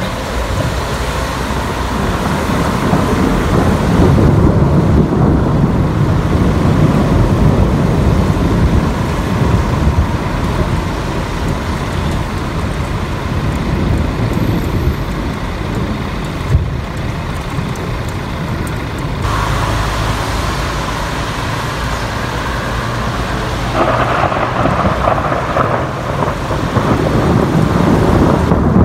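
Long rolling thunder rumbling on and on, swelling about four seconds in and again near the end, over a steady hiss of rain. There is one short sharp knock a little past the middle.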